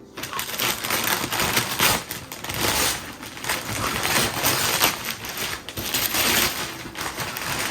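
Wrapping paper being torn and crumpled as a present is unwrapped, with a continuous run of irregular rips and crinkles.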